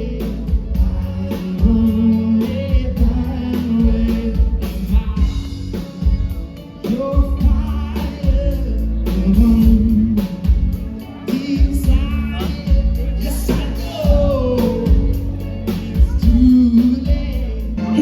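Background pop song with singing over a steady heavy bass beat.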